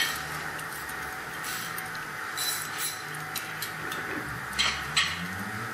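Scattered light metallic clicks and clinks as a differential carrier with a limited-slip unit is turned by hand and lined up with the bolt holes on the ring gear. There are two sharper clicks near the end, over a steady low hum.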